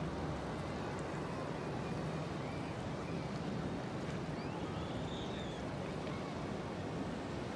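Steady rumble of wind on the microphone mixed with the wash of ocean surf, with a faint high rising-and-falling sound about five seconds in.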